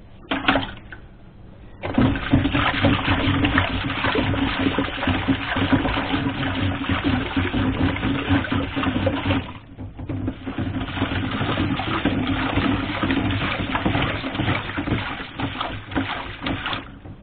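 Soapy water sloshing and splashing in a stainless steel sink as a plastic ventilation-fan wheel is scrubbed by hand under the water. The sloshing drops away briefly about halfway through, then goes on.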